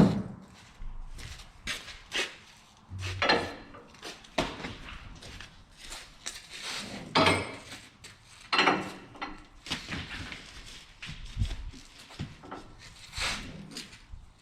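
Footsteps and irregular clanks, knocks and scrapes of tie-down gear being handled, about a dozen sharp hits spread unevenly, the loudest about halfway through.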